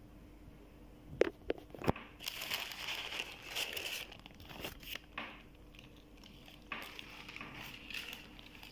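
Baking paper and plastic film crinkling and rustling in irregular bursts as a zucchini roulade is rolled up and wrapped, with two sharp clicks between one and two seconds in.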